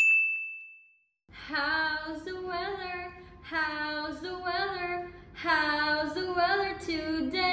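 A single chime tone rings and fades away in the first second, a brief silence follows, then a woman sings a children's song asking about the weather, in short phrases with pauses between them.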